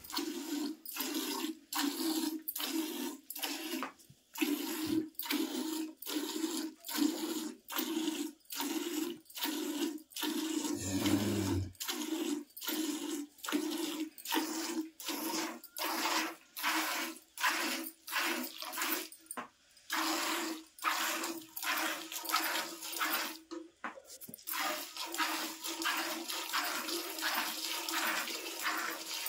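Hand milking of a cow into a steel pail: rhythmic jets of milk hiss into the milk already in the pail, about two squirts a second, growing a little quicker later. There is a brief low thud about eleven seconds in.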